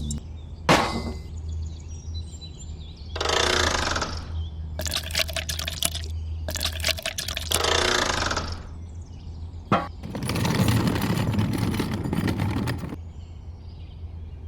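Water pouring or spraying in several separate gushes, each one to three seconds long, over a steady low hum.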